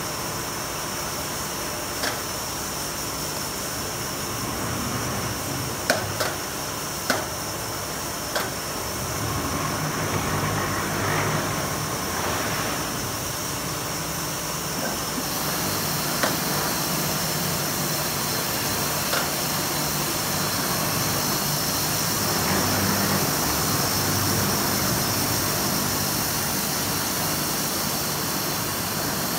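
Horizontal foam-cutting machine running steadily as its table carries a slab of memory foam through the cutter, with a continuous mechanical hum and hiss. A few sharp knocks come about two seconds in and again around six to eight seconds in.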